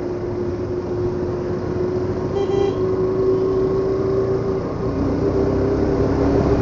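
Motorbike engine running steadily while riding, with road and wind rumble on the camera mic; the engine note drops a little about five seconds in. A short horn beep sounds about two and a half seconds in.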